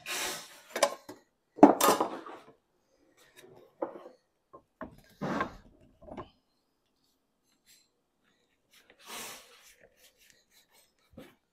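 Timber batten knocking and scraping on a sheet of lead on a wooden workbench as the lead's last edge is bent up over it. A few dull knocks with sliding rubs between, the loudest about two seconds in, and a softer rub near the end.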